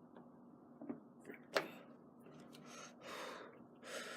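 Faint handling noise from the keypad lock hardware being fitted to the door: a few small clicks in the first second and a half, then several soft scraping swishes.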